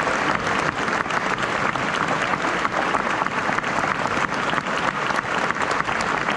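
Concert-hall audience applauding steadily, a dense patter of many hands clapping.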